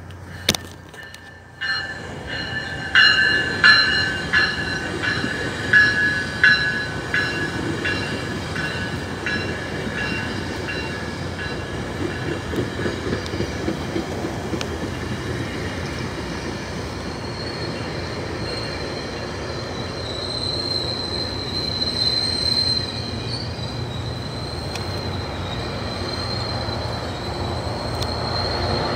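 GO Transit bilevel commuter train running through the station, its cars rumbling under high-pitched metallic squealing. The squeal comes in loud surges about two to seven seconds in, then settles into a steady thin whine.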